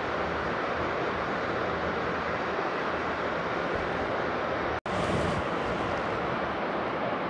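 Steady rushing background noise, even and unbroken, with a split-second dropout to silence about five seconds in where the recording is cut.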